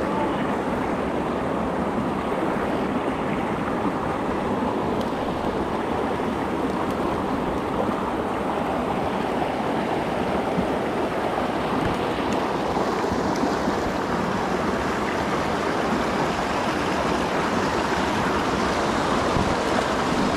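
Rocky mountain stream rushing steadily over boulders and small rapids.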